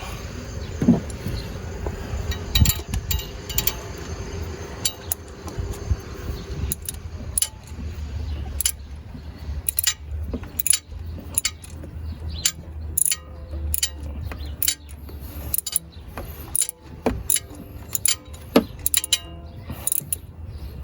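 Ratchet and socket clicking and clinking in quick irregular runs as a new spark plug is tightened down to snug, over a low background rumble.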